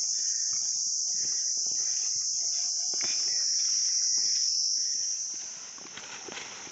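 Chorus of forest insects (the narrator's jhijhi) shrilling in one steady, high-pitched drone that fades down about five and a half seconds in.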